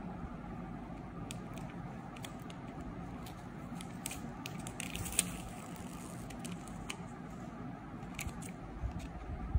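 Clear plastic packing tape crinkling and crackling as it is handled and pressed around a paper-and-cotton squishy, with scattered sharp clicks, the loudest a little past five seconds in. A steady low hum runs beneath.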